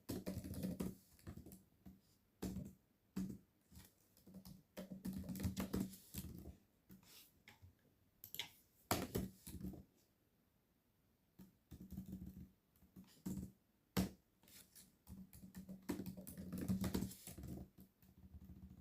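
Typing on a computer keyboard in irregular bursts of keystrokes, with a short pause about halfway through.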